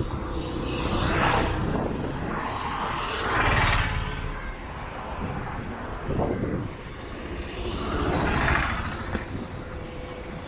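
Road traffic passing close by: cars, a motorcycle and an auto-rickshaw going past one after another, heard as about four separate swells of engine and tyre noise.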